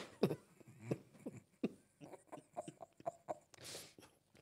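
A woman laughing quietly and breathlessly in short bursts, with a breathy hiss near the end.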